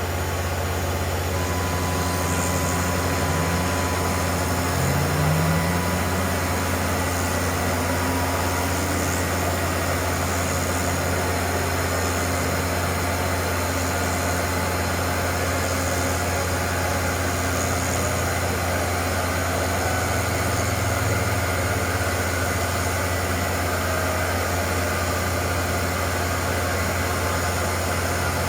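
CNC milling machine running steadily with a single-flute carbide bit, a strong low hum under a constant machining noise, with a couple of short rising tones about four to five seconds in.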